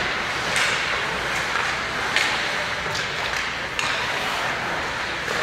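Ice hockey play: skates scraping the ice in a steady hiss, with four sharp clacks of sticks and puck spread about a second apart, the loudest near the middle.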